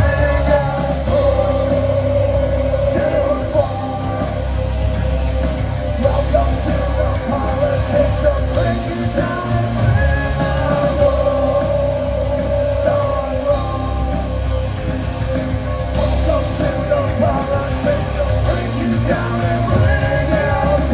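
Live heavy rock band playing loud through a PA, with distorted guitars, bass and drums and shouted vocals.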